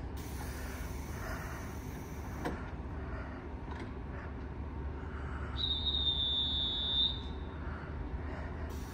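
A station departure signal sounds once as a high, steady tone for about a second and a half, past the middle, over a low steady hum from the electric train standing at the platform. A single sharp click comes about two and a half seconds in.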